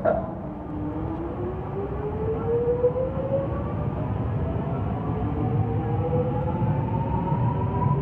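X'Trapolis electric train accelerating along an underground platform: its traction motors whine, rising steadily in pitch, over a steady rumble of the wheels on the rails. A sharp click right at the start.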